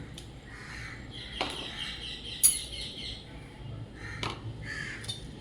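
Birds chirping, with a few sharp clicks; the loudest click comes about two and a half seconds in.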